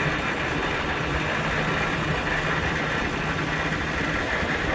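Vehicle engine running steadily with an even hum and no change in pitch, heard from on board.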